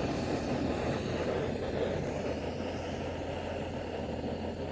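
Gas camping stove burner running with a steady rushing hiss, heating a pot of water toward the boil.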